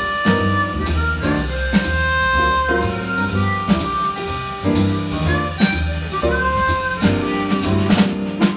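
Slow jazz ballad played live by a quartet: chromatic harmonica carrying the melody in long held notes over piano, upright bass and drums.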